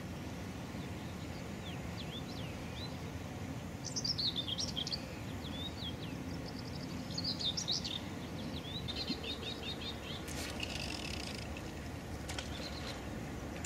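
Small birds chirping and calling in quick, high notes, including a rapid run of short repeated notes about nine seconds in, over a steady background hiss.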